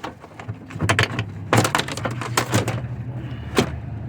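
Knocks and clatter of a plastic trunk panel being handled and set aside, a quick run of sharp knocks in the middle and one last knock near the end. A steady low hum comes in about a second in.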